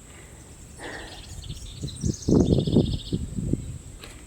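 A bird sings a short, rapid trill of repeated high notes about two seconds in, over louder, uneven low rumbling noise.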